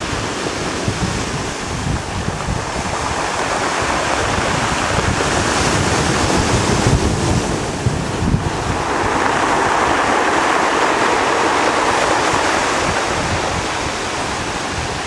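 Atlantic waves breaking and washing over a pebble beach and concrete blocks, with wind rumbling on the microphone. The surf swells louder just past the middle after a brief lull.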